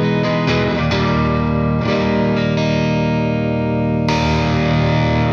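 Overdriven electric guitar, a Gibson Les Paul Tribute with P90 pickups, played through an 18-watt Satellite Neutron valve amp boosted by an Airis Effects NoKnobsense. Several chords are struck in turn, and one is left to ring for about two seconds in the middle before a new chord comes in near the end.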